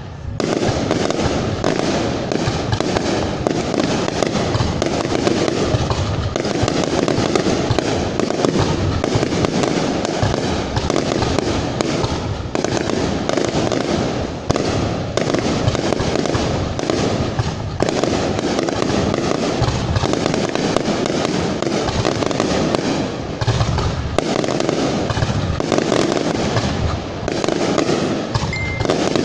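Aerial firework shells launching and bursting in a dense barrage, many bangs and crackles in quick succession without a break.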